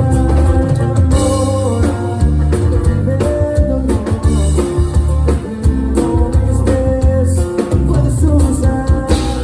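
A live band playing a song in rehearsal, with drums and bass carrying a steady beat under guitar.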